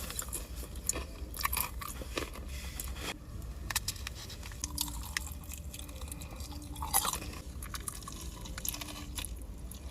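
Close-up mouth sounds of someone eating: chewing and crunching, heard as a run of short, irregular clicks that thin out after the first few seconds.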